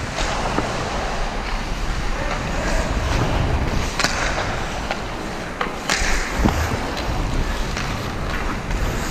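Hockey skate blades scraping and carving across the ice in a steady hiss, with a few sharp clacks about four and six seconds in.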